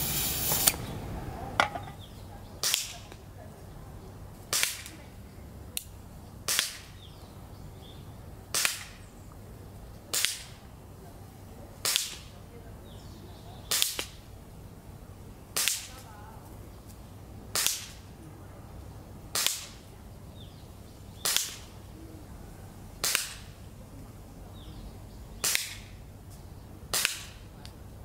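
Tokyo Marui HK45 gas blowback airsoft pistol, charged with Puff Dino gas, firing slow aimed single shots: about fifteen sharp cracks, roughly one every two seconds. A hiss of gas being charged into the magazine cuts off in the first second.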